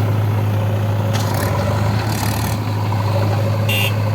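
Heavy diesel engine of a backhoe loader or tractor running steadily, with three short bursts of hissing noise over it.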